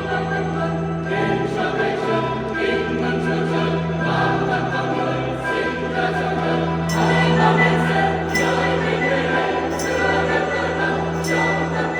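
Church choir singing a Vietnamese Christmas hymn over held low accompaniment notes. From about halfway through, a sharp high accent comes roughly every second and a half.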